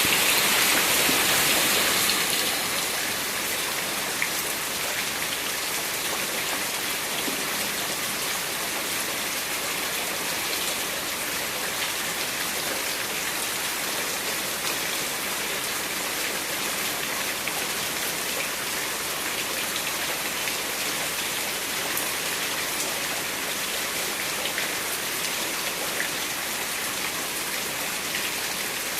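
Steady rain falling: an even hiss with scattered ticks of individual drops, a little louder for the first two seconds and then constant.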